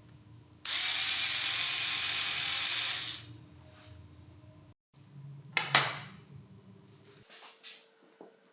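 Earth Man 2.4V mini cordless screwdriver's small motor and gearbox running for about two and a half seconds, then a shorter burst with clicks a couple of seconds later, followed by a few light knocks as it is handled.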